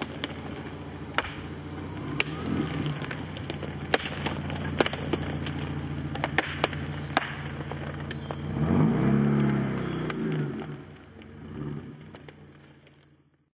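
An off-road 4x4's engine runs at low revs as the vehicle creeps over the forest floor, with sharp cracks of twigs and branches under the tyres. About eight seconds in, the engine revs up and falls back, then fades away and cuts off near the end.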